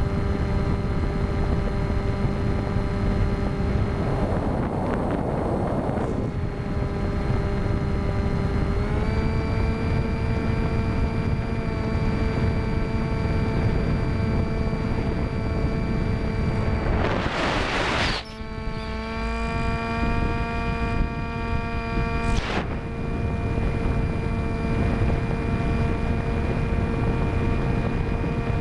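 Electric motor and 10x6 folding propeller of an FX-61 Phantom flying wing in flight, heard from onboard: a steady whine with several even overtones that steps up in pitch about nine seconds in. Gusts of wind noise on the microphone come about five, seventeen and twenty-two seconds in.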